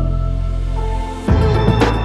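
Background music: sustained synth bass and chords, with a beat of drum hits coming in about a second and a half in.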